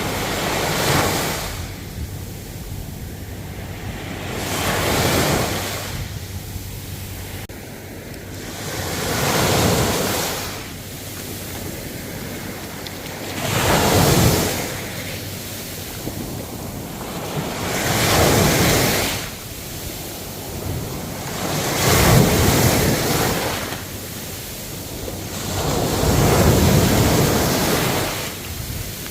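Ocean waves breaking on the shore, a swell of surf about every four seconds that rises and then washes back down, seven times over.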